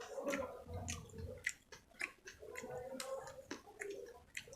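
Close-miked chewing of spicy chicken with gravy: wet mouth smacks and sharp clicks come several times a second.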